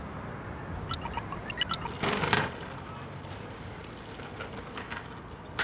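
Street ambience: a steady low hum with scattered clicks and knocks, and a short, loud rushing noise about two seconds in.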